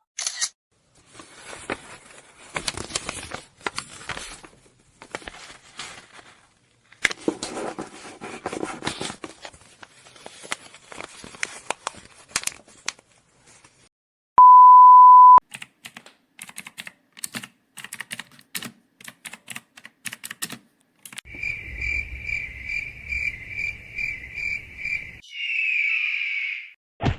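A run of short video-editing sound effects: glitchy crackles and clicks, then a steady one-second beep about halfway. Scattered clicks follow, and near the end a fast pulsing beep over a low buzz.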